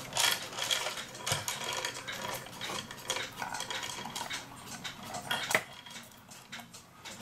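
The brass movement of a 1969 eight-day cuckoo clock being set into its wooden case: its chains jingle and the metal plates clink and knock against the wood in a steady run of small rattles, with one sharp click about five and a half seconds in.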